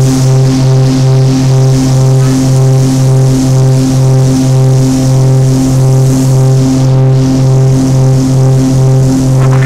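Cessna 402B's twin piston engines and propellers at takeoff power during the takeoff roll, heard inside the cockpit: a loud, steady drone that pulses about three times a second.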